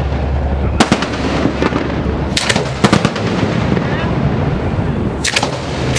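Aerial fireworks firing at close range: sharp reports about a second in, a quick cluster around two and a half seconds, and another pair near the end, over constant noise from the ongoing display.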